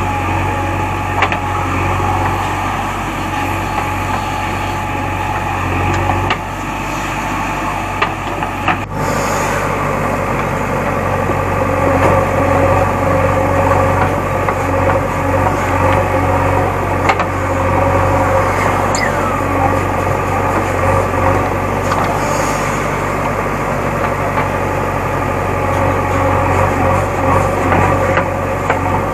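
JCB backhoe loader's diesel engine running steadily under digging work, with a few short knocks.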